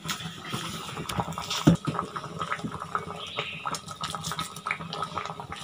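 Metal spoon mixing cooked rice and toor dal in a vessel, with small scrapes and clicks and one sharper knock under two seconds in. Then thick tamarind vegetable gravy bubbling in the pan, with soft pops.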